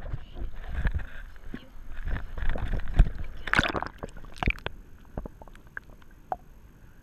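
Water sloshing and gurgling against a small boat, with irregular knocks and clicks from handling gear, busier for the first few seconds and then sparse.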